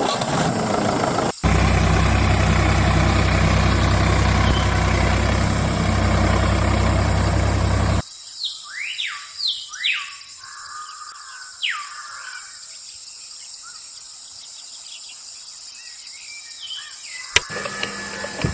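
A small motor running with a steady low hum that cuts off suddenly, followed by several short bird chirps over quiet outdoor ambience.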